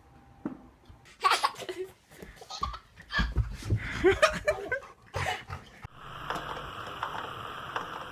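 Laughter in short bursts for several seconds. About six seconds in, it gives way to a steady hiss.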